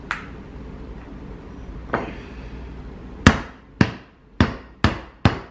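Hammer cracking a cooked lobster's hard shell on a wooden cutting board: two lighter knocks, then a run of five sharp blows about two a second in the last two seconds.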